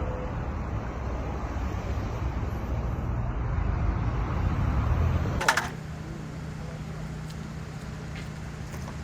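Road vehicle noise: a low rumble that grows louder over the first five seconds. It breaks off with a sharp click, and a quieter, steady engine hum follows.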